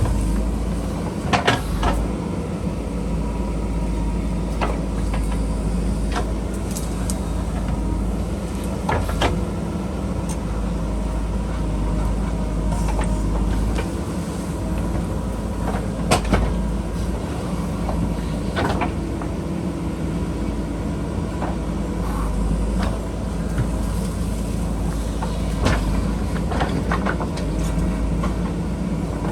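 JCB backhoe loader's diesel engine running steadily under load, with sharp clanks and knocks every few seconds from the machine working the hillside.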